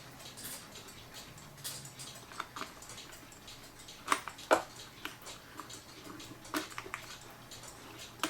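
Small clicks and knocks of cuckoo clock parts being handled as the hands are taken off, with two sharper clicks about four seconds in and a few lighter ones later.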